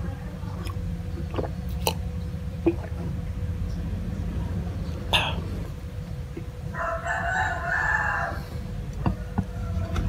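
A rooster crows once, about seven seconds in, for nearly two seconds. Around it come a few sharp knocks of tableware on a wooden board, over a steady low hum.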